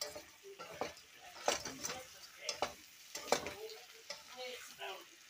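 A wooden spatula stirring whole shrimp frying in a metal pot, with several sharp knocks and scrapes against the pot over a light sizzle.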